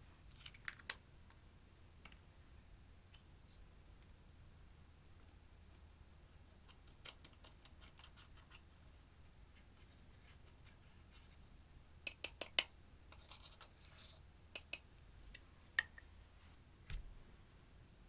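Clear slime being worked by hand with makeup mixed in, giving scattered sticky clicks and small crackling pops, thickest about twelve to fourteen seconds in.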